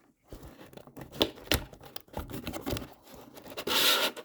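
A cardboard advent calendar compartment being torn and scraped as a beer can is worked free. There are irregular scratches and knocks, then a louder, longer tearing rip near the end.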